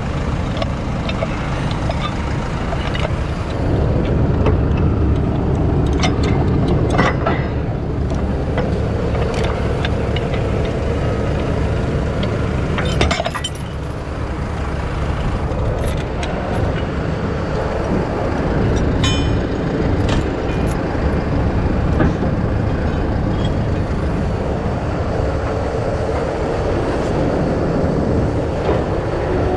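Heavy tow truck's diesel engine running steadily, with occasional sharp metal clinks from chains and rigging hardware.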